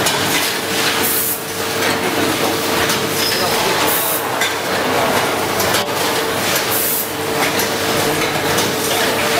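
Automatic granule packing line running: a steady mechanical clatter and hum. Three short hissing bursts of air come about every three seconds, in step with the bagging machine's cycle.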